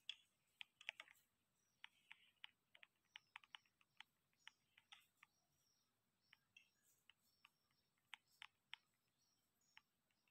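Faint, irregular clicks and taps of fingers on a smartphone held close to its microphone, spread unevenly through the whole stretch.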